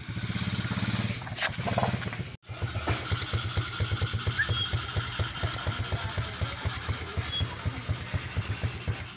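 Small engine running with a low drone, then, after a brief break about two seconds in, idling with an even low putter of about six beats a second.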